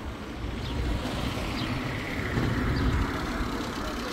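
Steady rushing noise of travel along a road, wind and road noise without a clear engine note.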